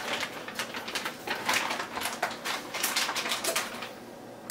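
Quick, irregular clicks and taps from handling kitchen things off camera while the cheese stuffing is put together. They thin out about three and a half seconds in.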